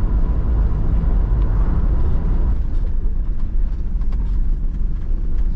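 Camper van on the move: a steady low road-and-engine rumble, with a faint whine that fades out about halfway through.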